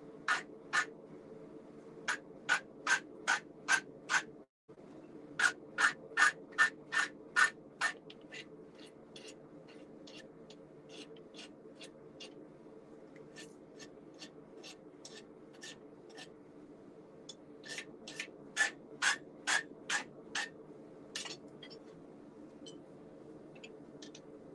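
An old farrier's rasp filing red-hot steel clamped in a vise, hot rasping to clean up the piece. The rasping strokes come in runs of about three a second, fainter through the middle and louder again near the end, over a faint steady low hum.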